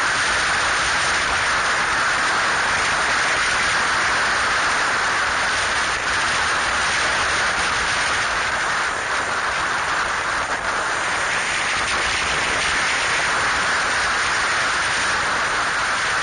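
Steady wind rush and road noise on a camera mounted on a moving motorcycle.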